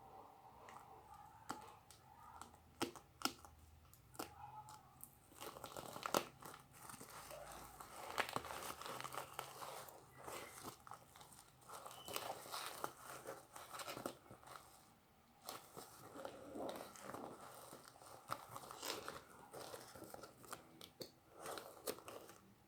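Parcel packaging being torn open and crinkled by hand: irregular rustling and tearing with sharp crackles.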